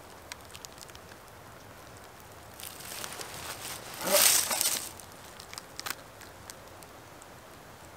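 A hiking boot stepping up onto a rotten log, with a short crunch of dry leaves and bark underfoot about four seconds in. Softer rustling comes just before it and a few light clicks follow.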